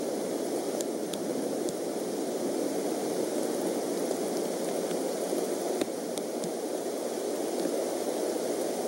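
Steady rain on the eagle nest and surrounding trees, heard through the nest-cam microphone as an even hiss with a few scattered faint ticks of drops.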